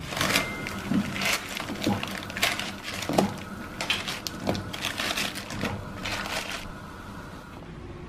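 Instant noodle packets being handled: irregular crinkling of plastic wrappers with sharp cracks and snaps, dying away about two-thirds of the way through.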